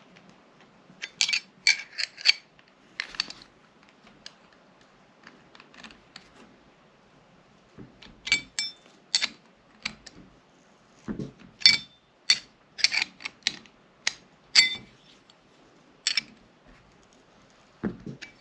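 Irregular sharp metallic clicks and taps, in short clusters, from a wrench turning the bolt of a sight pusher tool to press the rear sight out of a Glock 17 slide.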